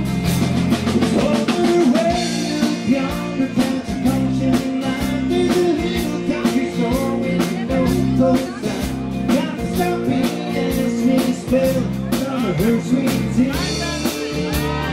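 Live band playing an instrumental passage between sung verses: guitar lines over a steady drum-kit beat.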